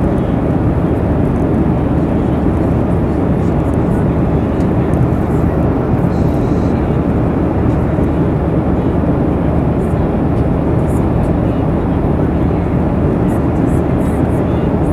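Jet airliner cabin noise in cruise flight: an even, low rushing of engines and airflow, heard from inside the cabin at a window seat over the wing.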